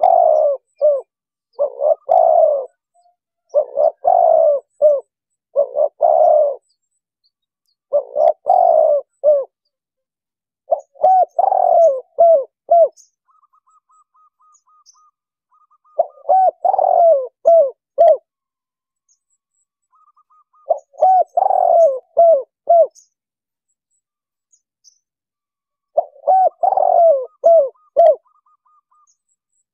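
Spotted dove cooing in repeated phrases, each a burst of several quick coos lasting one to two seconds. The phrases come about every two seconds at first, then about every five seconds. Between the later phrases a faint, fast run of higher notes can be heard.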